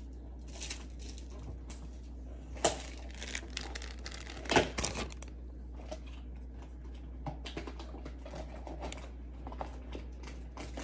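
Small objects being handled: scattered light clicks and plastic crinkling as glass vials and bagged syringes are set out, with two sharper knocks, one about two and a half seconds in and one about four and a half seconds in.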